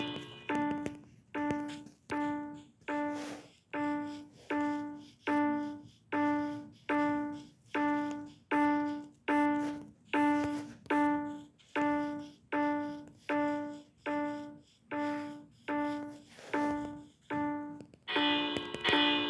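Fire alarm chime striking the same single low note over and over, about once every 0.8 s, each note fading quickly. A fuller ringing of several notes at once is there at the very start and comes back near the end.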